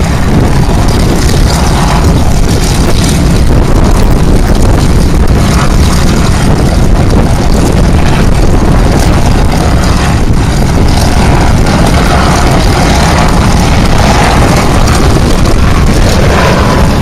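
Strong wind buffeting the microphone: a loud, steady, rumbling rush that covers everything else.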